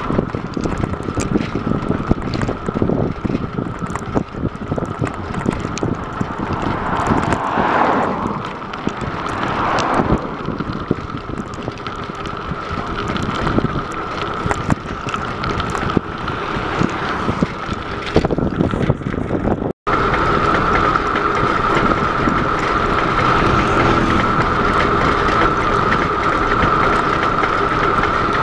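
Wind rushing over a bicycle-mounted camera's microphone while riding at speed on a tarmac road, with small rattles and knocks from the bike over the road surface and a steady high whine. The sound cuts out for an instant about two-thirds of the way through, after which the whine is louder.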